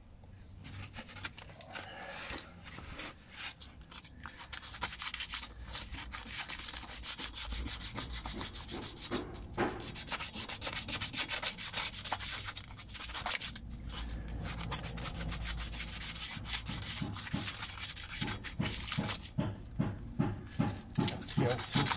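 Sandpaper rubbed back and forth by hand over surface rust on a Suzuki Swift's steel wheel, taking it back to bare metal. Near the end the strokes become distinct and regular.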